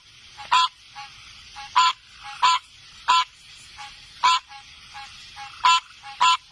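An animal calling over and over in short, loud notes, irregularly about every half second to second and a half, with softer short notes in between.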